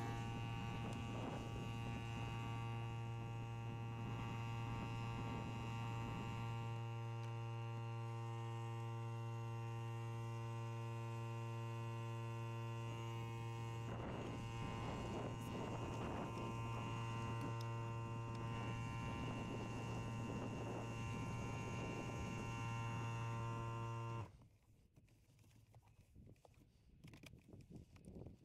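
Steady electric hum on one low pitch with overtones, cutting off suddenly about 24 seconds in. Soft brushing and scrubbing sounds come and go under it, loudest about halfway through.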